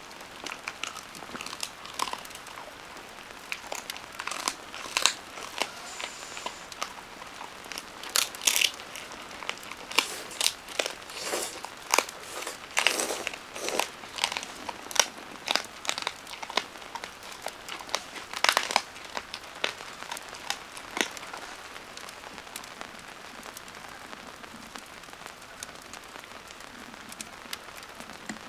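Irregular crinkling and crackling, a quick, uneven run of short sharp crackles that thins out and stops about three-quarters of the way through.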